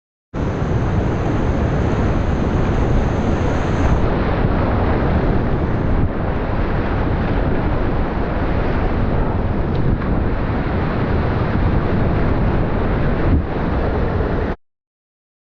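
Steady rush of Deschutes River whitewater rapids mixed with wind buffeting the microphone. It cuts in suddenly just after the start and cuts off suddenly near the end.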